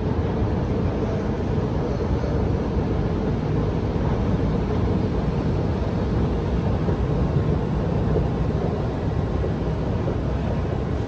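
Steady low rumble of underground metro station ambience, with a faint steady hum running under it.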